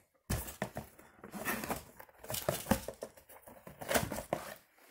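Handling noise from a zippered hard sunglasses case in a cardboard box: irregular rustles and light knocks as the case is handled and unzipped.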